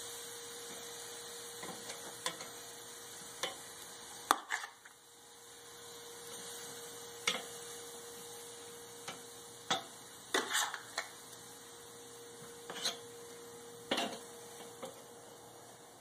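Metal tongs clicking and tapping on a charcoal kettle grill's grate as pork steaks are laid on and moved, irregular sharp clicks with the loudest a little past four seconds in and a quick cluster around ten seconds. A faint steady hum runs underneath.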